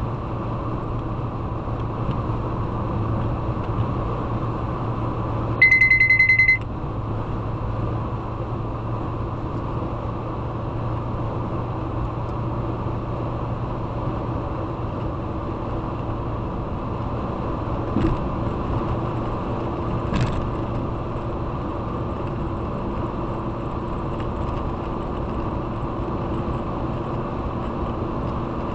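A car driving on a road, with steady engine and road noise. About six seconds in, a loud high beep lasts about a second, and two short knocks come later.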